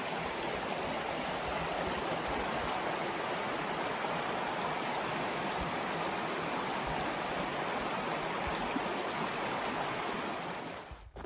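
Shallow creek water rushing steadily over rocks and through a riffle, a constant even wash of water sound that cuts off near the end.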